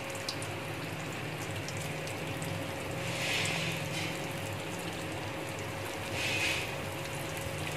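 Samosas deep-frying in hot ghee: a steady sizzle with scattered small crackles, swelling louder twice, about halfway through and again near the end.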